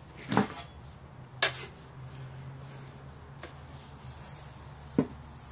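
A disassembled Disston handsaw being handled on a workbench: four short knocks as the loose wooden handle and the bare steel blade are picked up and set down, the third one faint, over a low steady hum.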